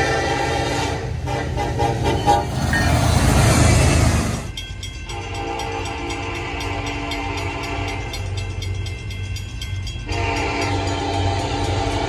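Nathan K5LLA five-chime locomotive air horn (raised-letter third generation) sounding a steady chord that breaks off about a second in. A loud rushing noise follows, then the horn sounds two long blasts, the second starting about ten seconds in, over the low rumble of the train.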